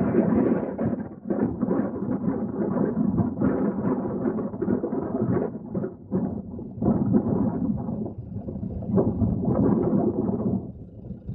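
Wind buffeting the camera microphone: a rumbling, gusting noise that swells and dips every second or so, with no engine or other tone.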